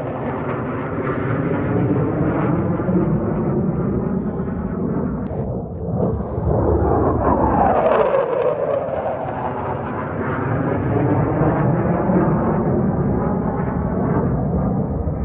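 Military jet flying past, a loud steady jet roar with sweeping, falling pitch bands as it passes; it swells again about eight seconds in.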